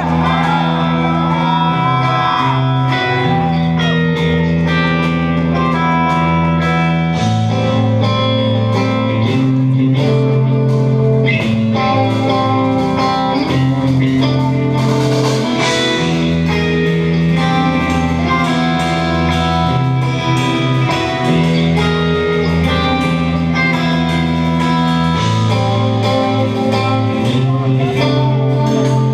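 Live instrumental progressive metal played on eight-string electric guitar: sustained, layered chords ring over low notes that shift every second or two.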